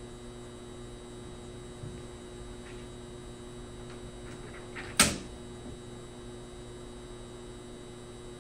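Steady electrical hum of a quiet room, with a few faint taps and one sharp bang about five seconds in.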